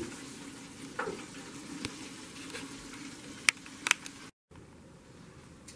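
Battered chicken wings deep-frying in hot oil: a steady sizzling hiss, with a few sharp clicks over it. The sound breaks off for a moment about four seconds in, then the hiss returns more quietly.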